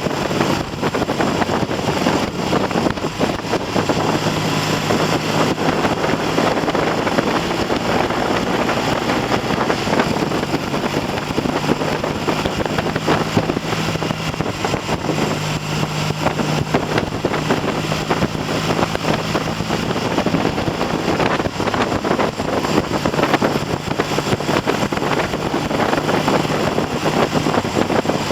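Triumph TR6 650 cc parallel-twin engine pulling steadily at mid revs on the road, its note shifting a little with throttle and gears, largely buried under heavy wind noise on the microphone. The engine is being run in on a freshly rebuilt top end with new pistons and rings and a 108 needle jet in the carburettor.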